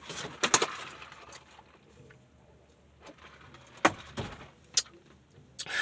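Cardboard and paper takeout boxes being handled and set down, with rustles and sharp taps and a dull thump about four seconds in.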